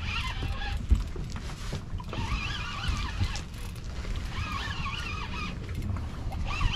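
Steady low wind rumble on the microphone and water moving around a small aluminium fishing boat. A wavering, higher-pitched whine comes and goes twice in the middle and again near the end.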